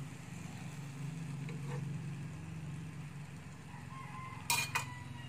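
A steady low mechanical hum with two sharp metal clinks of cookware about four and a half seconds in.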